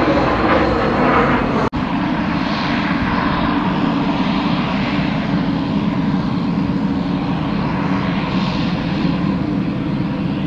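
Jet noise from a Gulfstream business jet climbing out, cut off abruptly about two seconds in. Then the steady drone of a Pilatus PC-12's single turboprop engine and propeller as the plane moves along the runway.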